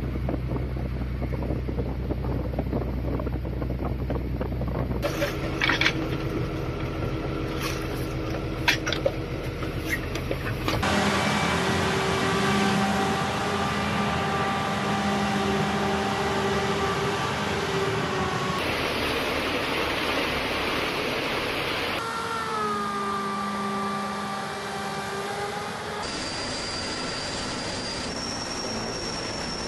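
A run of short outdoor field recordings: a boat's engine running with wind on the microphone, a few sharp knocks, then vehicle engines running steadily, and near the end the high steady whine of a firefighting helicopter's turbines.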